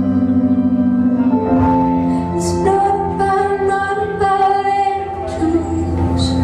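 A slow song playing, a woman singing long held notes over sustained accompaniment.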